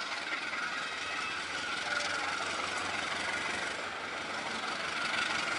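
Diesel-electric locomotive running as it approaches at the head of a passenger train: a steady engine rumble mixed with wheel-on-rail noise.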